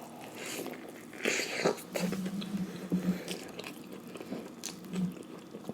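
Close-up chewing and crunching of a breaded fried chicken sandwich, with irregular crisp crunches and a low closed-mouth 'mmm' hum twice.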